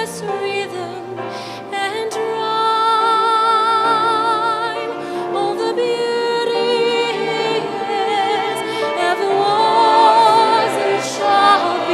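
A female soloist singing long, sustained notes with a wide vibrato over live orchestral accompaniment.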